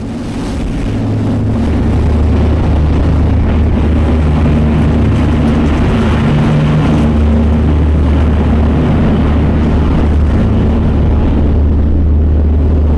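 Tour boat's engines running underway: a steady low drone with a broad rushing noise of wind and water over it, swelling over the first couple of seconds and then holding level.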